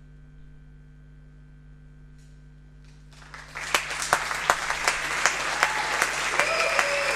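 A low steady hum with a few faint ticks. About three and a half seconds in, audience applause breaks out and keeps going, with a few whistles over the clapping.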